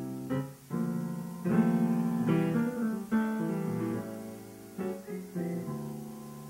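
Grand piano played solo: a run of struck chords, one after another, each left to ring and die away before the next.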